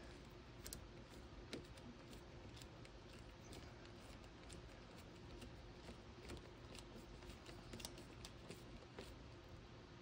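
Near silence with faint, irregular small metallic clicks from a nut driver and wrench tightening a 10 mm nut on a control-cable clamp.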